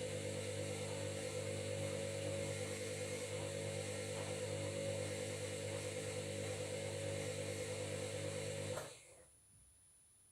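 Washing machine running with a steady motor drone and hiss, which cuts off abruptly near the end.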